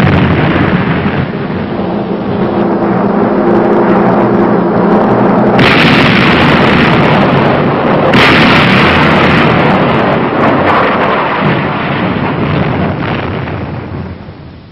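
Battleship main guns firing broadsides: a heavy, rolling blast already under way, with fresh blasts about five and a half and eight seconds in, dying away near the end.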